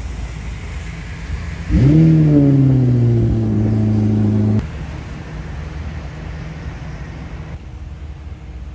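Ferrari 488's twin-turbo V8 starting: about two seconds in it fires and flares up, then drops back toward a steady fast idle. The engine sound cuts off suddenly midway, leaving a steady low outdoor rumble.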